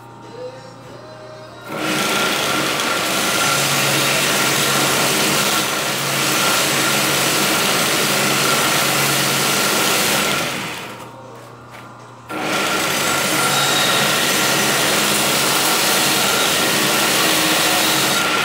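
Homemade belt sander driven by a sewing-machine motor, a knife blade held against the running abrasive belt: a loud, steady grinding with a whine in it. The grinding starts about two seconds in, eases off for a second or two around the middle, and picks up again abruptly.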